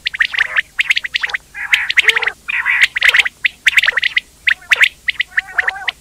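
Quail calling: quick clusters of short, sharp chirps mixed with rasping, chattering notes, repeated with only brief pauses.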